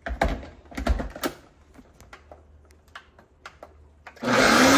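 A few sharp clicks and knocks. Then, about four seconds in, a countertop blender switches on and runs loudly, its motor whine rising as it comes up to speed, blending a thick chile de árbol and vinegar salsa.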